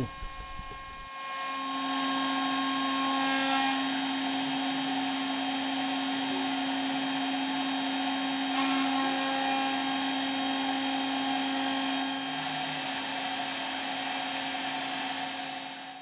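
A homemade CNC mill's air-cooled 2.2 kW spindle whines at high speed as a 4 mm end mill cuts a small square pocket into a metal plate, working a little at a time. The sound comes up about a second in, holds steady on a fixed tone, and dies away near the end.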